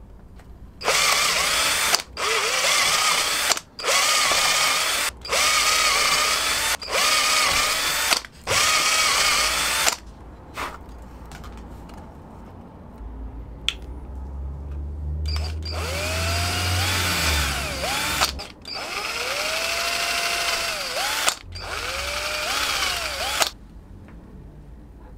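Electric drill boring holes through a Kydex sheath, run in short bursts: about six quick bursts, then after a pause a few longer runs in which the motor's pitch dips and recovers as the bit bites through the plastic.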